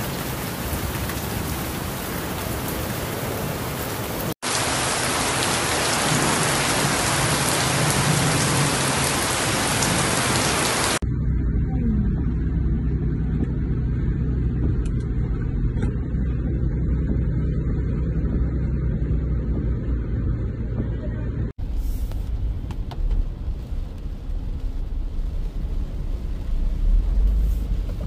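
Heavy tropical rain on a car's roof and windshield, heard from inside moving cars, as a steady hiss broken by abrupt cuts between clips. In the middle stretch the sound turns mostly to a low rumble as a car drives through a flooded street.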